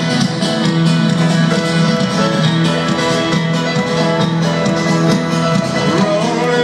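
Folk-rock band playing live, an instrumental passage of quick plucked acoustic guitar and banjo over a steady low bass note, with no lead vocal yet.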